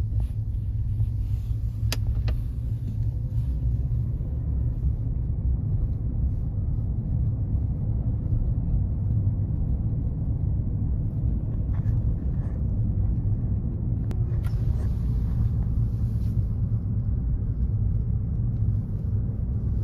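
Car driving, heard from inside: a steady low rumble of engine and road noise, with a few faint clicks.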